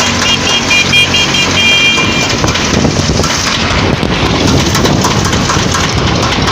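Loud, steady road and traffic noise with a low engine hum. A quick run of short high beeps, then one longer beep, sounds in the first two seconds. The noise cuts off abruptly at the end.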